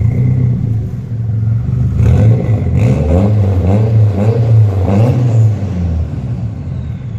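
Nissan S15 Silvia's turbocharged SR20DET four-cylinder engine idling, with a few quick throttle blips between about two and five and a half seconds in, then settling back to idle.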